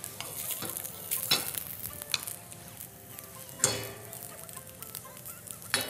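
Starch-coated tofu pieces sizzling in a hot oiled frying pan, with a few sharp taps of a utensil against the pan as the pieces are turned; the loudest tap comes about three and a half seconds in.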